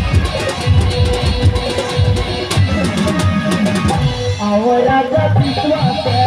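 Loud Chhattisgarhi folk-drama stage music: dense drumming under a held melody line. About four seconds in, the drums drop back and a wavering, sliding melody comes forward.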